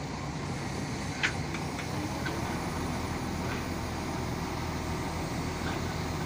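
Mobile crane's engine running steadily while the crane holds a suspended bundle of steel reinforcing bars. A sharp knock comes about a second in, followed by a few lighter ticks.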